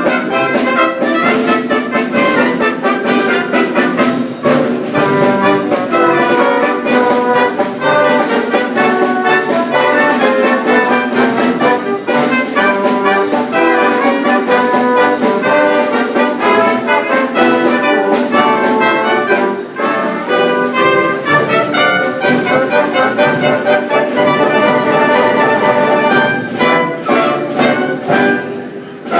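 A band with brass, trumpets and trombones prominent, playing a lively piece with crisp note attacks. The music dips briefly near the end before coming back in.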